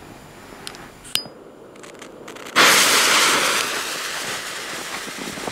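A few faint clicks, then about two and a half seconds in a firecracker's green fuse catches and hisses loudly, the spitting hiss slowly fading as it burns down.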